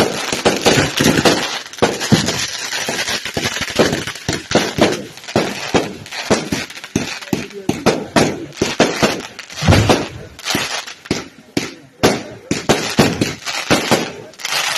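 Fireworks of a burning castillo tower: a hissing spray of sparks under rapid, irregular bangs and crackles from firecrackers and aerial shells bursting overhead. The hiss is strongest in the first few seconds, after which the bangs dominate.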